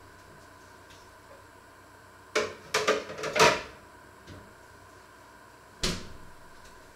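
Kitchen clatter: a quick run of knocks and clanks about two and a half seconds in, then a single knock near the end.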